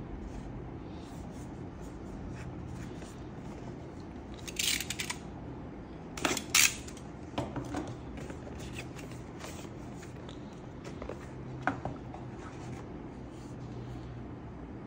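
Packaging and product parts being handled and cut open: scattered small clicks and rustles, with two louder sharp snipping or tearing bursts about five and six and a half seconds in, over a steady low hum.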